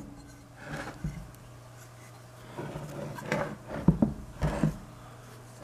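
Heavy cast-iron electric motor handled and shifted on a wooden workbench: a couple of dull knocks and scrapes about a second in, then a cluster of knocks and rubbing in the second half.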